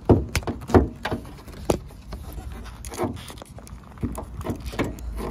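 Irregular clicks and knocks of a hand fumbling at the front edge of a Honda Odyssey's hood, feeling for the latch, mixed with close handling noise on the camera, over a low rumble.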